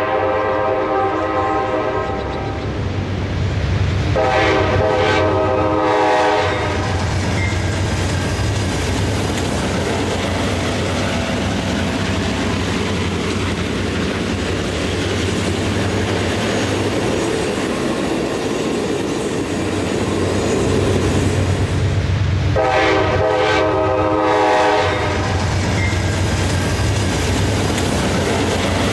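Diesel locomotive chord air horn sounding long blasts: one ending just at the start, one about four seconds in, and another about three-quarters of the way through. Between the blasts runs the steady rumble of an approaching passenger train on the rails.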